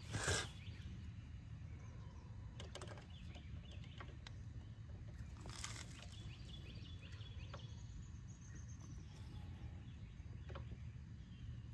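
A torque wrench working a frame-slider bolt, with a short rasp at the start and a few scattered clicks, the clearest one about halfway through. Faint bird chirps and a low outdoor hum run behind it.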